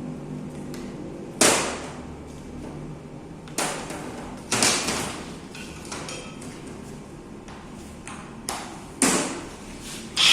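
Several sharp knocks, five in all, each with a short ringing tail, from hard objects being handled and set down on a surface. Right at the very end a loud steady motor noise sets in as the angle grinder is switched on.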